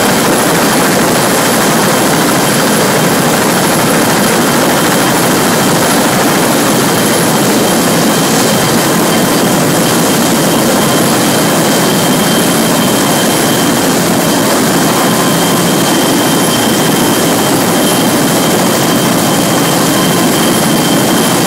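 Heavy-lift CH-53-type helicopter running on a ship's flight deck: a constant rush of turbine engine and rotor noise with a steady high whine throughout.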